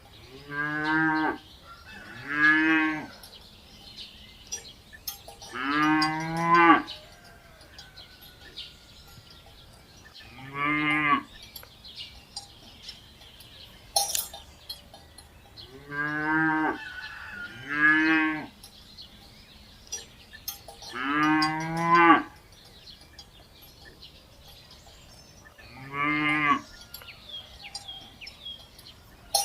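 Cattle mooing: about eight separate low, drawn-out moos of around a second each, some close together in pairs, with quiet gaps between. A sharp click is heard about halfway through.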